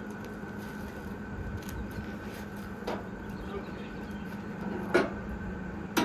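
A few knocks and one sharp clank about five seconds in from a cant hook working a large pine log against the steel bed of a band sawmill, over a steady low hum.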